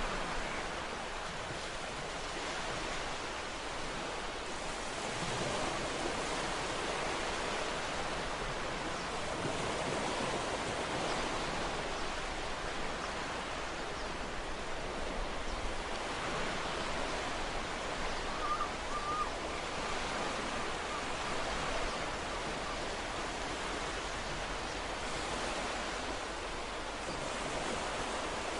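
Ocean waves washing on a shore: a steady rushing surf that swells and eases gently in loudness.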